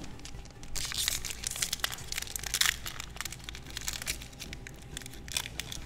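A Magic: The Gathering booster pack's wrapper crinkling and crackling as it is torn open and handled, starting about a second in. It is densest for the next two seconds, then comes in sparser crackles.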